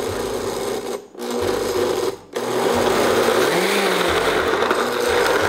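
Oster countertop blender running, blending a smoothie with ice, stopping briefly twice, about a second in and again after two seconds, then running steadily.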